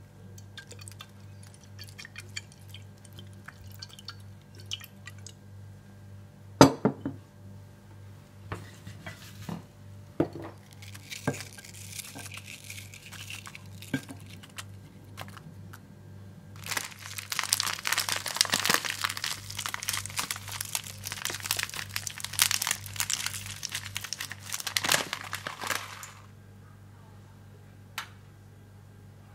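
Shredded cabbage and apple pieces handled in a ceramic dish: scattered small clicks and a sharp knock early on, then a long stretch of dense crunchy rustling as the leaves are worked, stopping a few seconds before the end.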